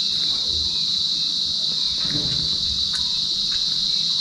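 Steady, shrill insect chirring, a continuous high drone from crickets or similar insects.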